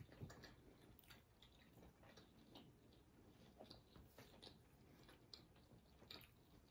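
Faint chewing of potato chips and a sub sandwich, heard as soft, irregular mouth clicks and small crunches.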